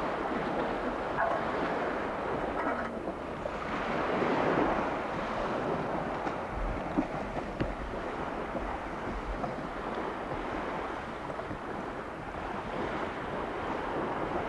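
Wind buffeting the microphone over small waves washing in shallow water.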